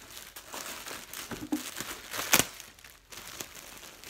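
Clear plastic poly bag crinkling as it is handled and pulled open, with a sharper crackle a little over two seconds in.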